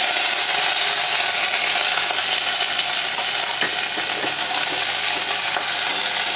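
Sliced onions sizzling steadily in hot mustard oil in a metal kadai, with a spatula stirring and scraping them against the pan from about halfway.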